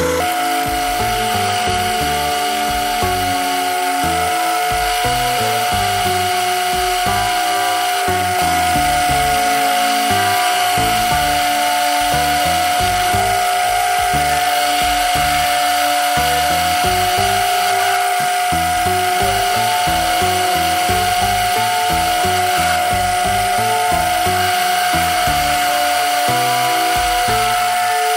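Metal lathe cutting a thread on a steel shaft, the spinning chuck and cutting tool giving a steady whine, heard under background music.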